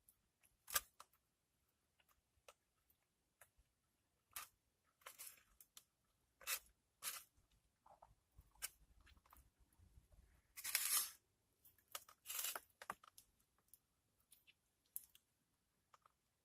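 Eating sounds close to the microphone: scattered short clicks and brief rustles from utensil and food container, with some chewing, the longest rustle about ten seconds in.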